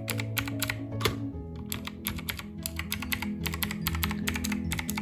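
Clicky Outemu Blue switches on an ANT Esports MK1000 mechanical keyboard being typed on: a quick, irregular run of sharp key clicks, over background music.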